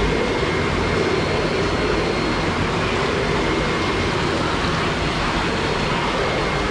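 Steady rushing noise of water circulating and aerating in live-fish tanks, with a faint steady high whine.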